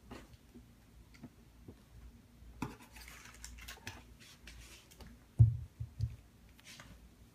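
Shoebox and packing being handled during an unboxing: scattered light scrapes, clicks and rustles, then three dull thumps in quick succession just past halfway.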